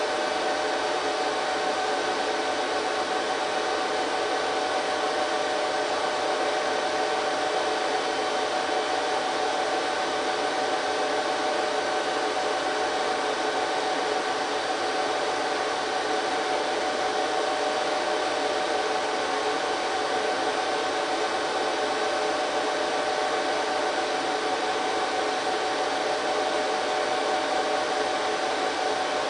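HP ProLiant DL380 G3 rack server's cooling fans running: a steady whir with several steady tones in it.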